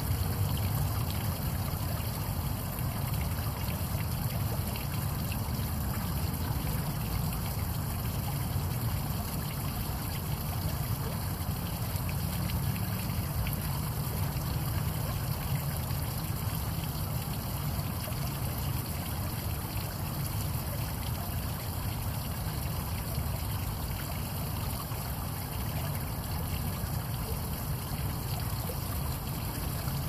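Small garden rock waterfall: water spilling steadily over a stone ledge and splashing into the pool below, with a low rumble under the splashing.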